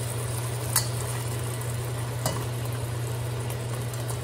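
Fish head sizzling as it fries in oil in a steel wok, with a metal spatula knocking against the wok twice, about a second in and again about two seconds in. A steady low hum runs underneath.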